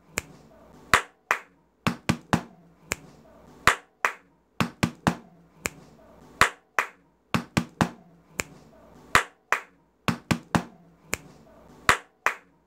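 Hand claps, taps and finger snaps in a repeating rhythm: two claps, three taps, one snap, then again. The six-stroke pattern comes round a little under every three seconds, about four times over.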